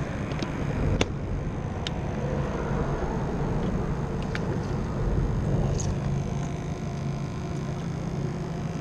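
Steady rumble of traffic on the causeway bridge, with a few brief sharp clicks.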